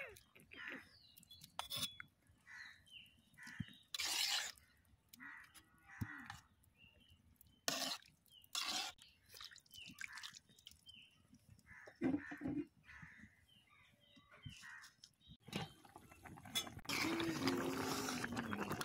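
Scattered light knocks and clatter of cooking utensils with faint bird chirps, then, about three-quarters of the way through, water pouring steadily.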